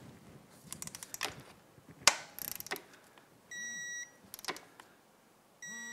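Torque wrench tightening a motorcycle oil drain bolt: a few ratchet clicks, then two short electronic beeps about two seconds apart as it reaches the set torque of 12 foot-pounds.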